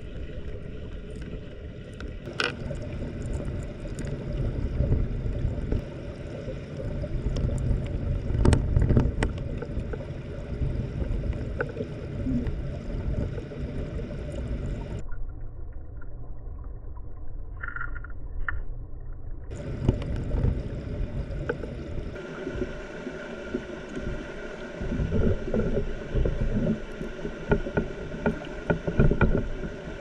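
Mountain stream water flowing over rocks, heard from under the surface: a muffled low rumble with scattered knocks and clicks. It drops away abruptly about halfway through and returns a few seconds later.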